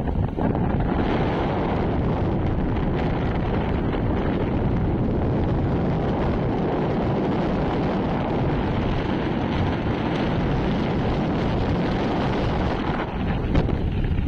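Steady wind buffeting the microphone from travel in a moving vehicle, over the rumble of the vehicle and its tyres on the road.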